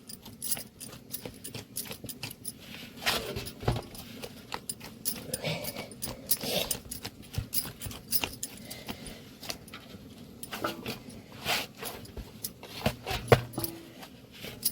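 A dog barking now and then, among scattered clicks and clinks.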